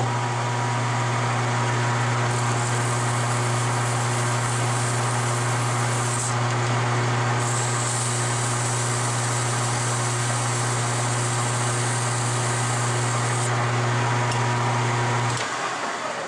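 Metal lathe running at a steady speed with an even motor hum, while a strip of sandpaper is held against a small spinning metal bearing adapter, giving a hissing scratch in two stretches. The sanding takes a little off the adapter's outside diameter. About fifteen seconds in the motor hum cuts out and the chuck coasts down.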